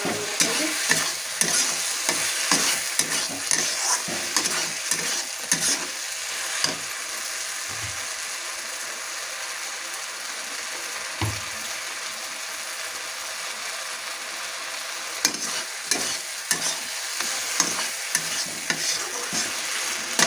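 Tomato masala with fried potatoes sizzling in a metal kadai while a metal ladle stirs it, scraping and clinking irregularly against the pan. The stirring eases off for several seconds around the middle, leaving the steady sizzle with a single knock, then picks up again near the end.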